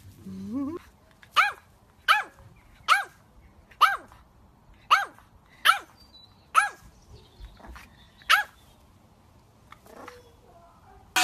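French bulldog puppy barking in high, sharp yaps, about eight of them roughly a second apart, after a short rising whine at the start.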